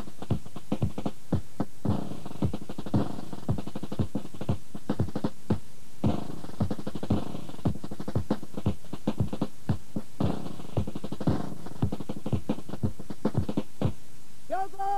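Backing music of rapid, uneven drum-like beats. Near the end a brass melody comes in.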